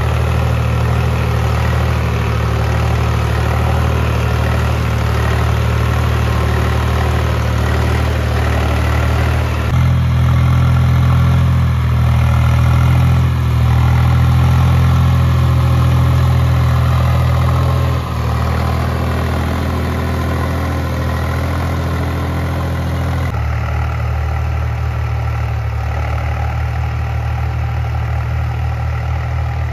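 Swaraj 735 FE tractor's three-cylinder diesel engine running steadily while it pulls a tillage implement through the field, a low drone whose loudness and tone change abruptly three times.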